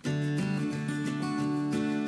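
Background music on acoustic guitar, plucked and strummed notes with a steady pulse, coming in suddenly at the start.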